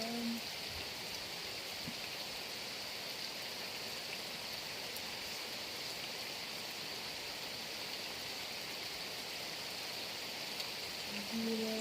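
Heavy rain falling steadily: an even hiss with no let-up.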